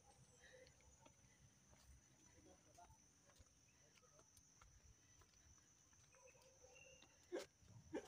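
Near silence: faint outdoor ambience with a steady high hiss. Faint voices are heard about six seconds in, and there is a short knock near the end.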